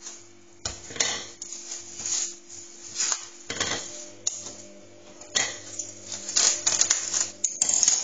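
Plastic cling film crinkling and rustling in irregular bursts as a ball of dough is wrapped in it by hand.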